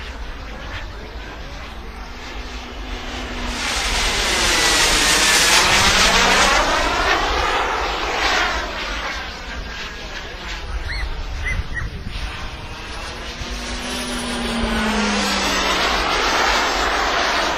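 Radio-controlled model jet with a turbine engine flying past twice. Its jet rush swells and fades with each pass, the first pass the louder, and a faint high turbine whine drops in pitch as it goes by.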